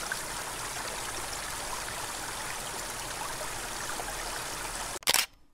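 Small stream flowing with a steady rushing sound. About five seconds in there is a brief loud noise, then the sound cuts off suddenly.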